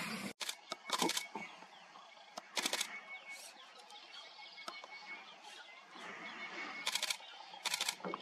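Camera shutters firing in quick bursts of several clicks each, about five bursts, against quiet bush ambience with a faint, high, pulsing tone.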